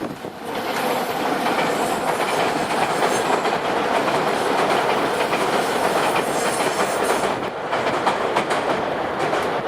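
Nankai Electric Railway train passing over a level crossing, its wheels clattering steadily over the rail joints, easing briefly about seven and a half seconds in.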